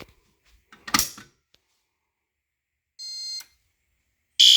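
A Notifier NBG-12 fire alarm pull station is pulled, giving a sharp snap about a second in. A short electronic beep follows about three seconds in. Near the end the fire alarm horns start sounding loudly.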